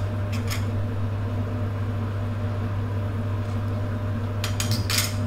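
Steady low electrical hum of a running kitchen appliance, with a few short light clicks about half a second in and again near the end.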